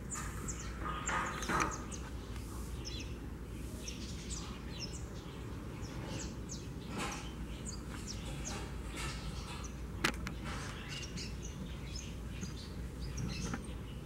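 Small birds chirping on and off over a steady low rumble, with one sharp click about ten seconds in.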